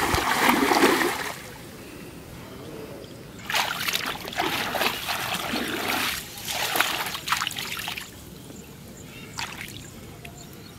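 Shallow flood water splashing as hands churn it, in bursts: at the start, and again from about three and a half to eight seconds in.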